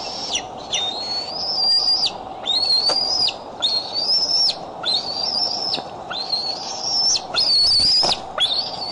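Bald eaglets giving a string of high whistled squeals, each rising and then held for most of a second, about one a second: food-begging while an adult tears up food. A brief rustle near the end.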